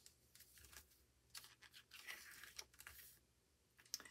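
Faint rustling of paper: a handful of soft swishes and crinkles as a K-pop album's paper pages and casing are handled.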